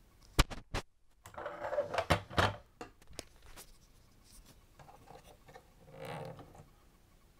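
Handling noise on a plastic toy fire engine: two sharp clicks, then a burst of rubbing and knocking, and a softer spell of rubbing near the end.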